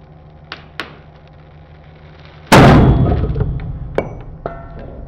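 Hydraulic press running with a steady low hum as it loads a screwed and duct-taped wooden joint, with two small cracks about half a second in. About two and a half seconds in, the joint fails all at once with a loud snap as the duct tape tears through, followed by a ringing clatter of steel spacers that dies away, and a few more cracks near the end.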